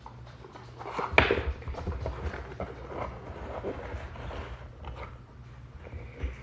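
Cardboard and plastic packaging being handled as a boxed camera is opened and taken out. There is rustling and a run of small clicks and knocks, with one louder knock about a second in.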